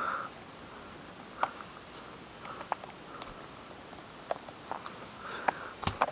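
Pummelo being peeled by a rubber-gloved hand: soft tearing of the thick spongy pith and peel, with scattered small snaps and clicks at irregular moments.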